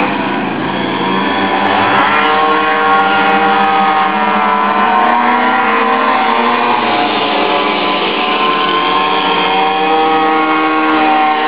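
Several minibike (pocket bike) two-stroke engines running hard at once, each at its own pitch, with the pitches sliding up and down in the first couple of seconds as bikes pass close by.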